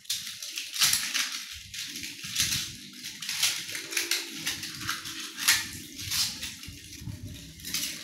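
Kitchen tap running over a bundle of metal spoons and utensils that are being scrubbed with a sponge in a stainless steel sink. Repeated scrubbing strokes about once a second, with utensils clinking together.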